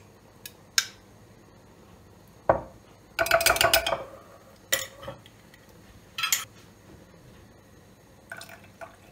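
Metal spoon clinking and knocking against glass jars as yogurt is spooned from one jar into another: a few single clinks, then a quick run of clinks about three seconds in.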